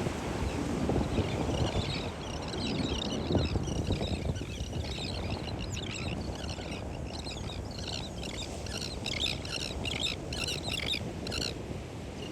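A flock of terns calling, many short chirping calls overlapping, growing denser and more rapid in the second half, over a steady low rumble.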